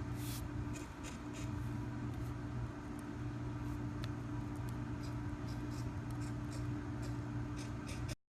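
A steady low hum holding two constant tones, dipping briefly about a second in, with scattered faint clicks; it cuts off abruptly near the end.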